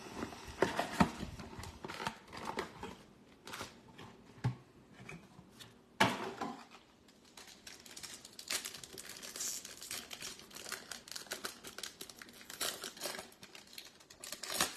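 Foil wrapper of a Topps Stadium Club Chrome trading-card pack crinkling and being torn open by hand, with irregular crackles; the sharpest comes about six seconds in.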